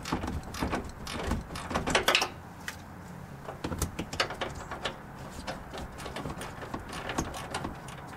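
Hand ratchet clicking in short, irregular runs as a 19 mm nut on an upper control arm mounting bolt is turned, with a burst of quicker clicks and knocks about two seconds in.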